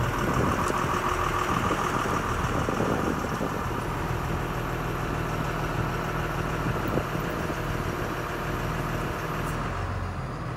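2003 DeepRock DR-150 drill rig's engine running steadily at idle, with a whine over the first few seconds.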